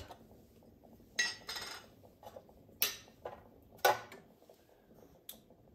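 Glass jar of salt being opened: the lid twisted off with a short scrape, then a few separate clinks and knocks of glass and metal.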